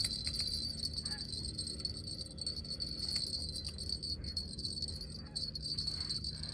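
Night insects, likely crickets, chirring in a steady high-pitched drone that does not let up.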